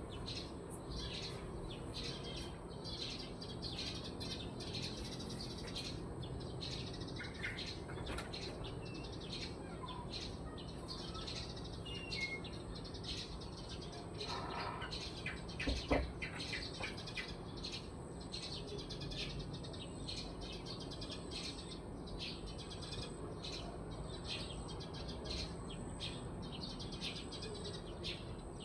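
Many small birds chirping rapidly and continuously in the early morning, a dense overlapping chorus of short high chirps. About sixteen seconds in there is one brief sharp knock, the loudest sound.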